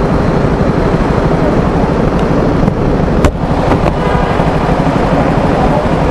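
Motorcycle engine idling in stop-start traffic, a steady low rumble with fast pulsing, and a single sharp click about three seconds in.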